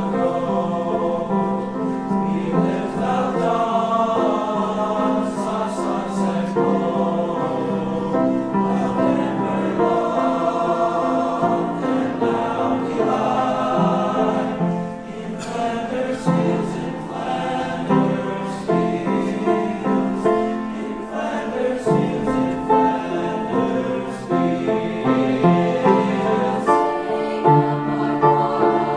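Mixed choir of men's and women's voices singing, moving through held chords under a conductor.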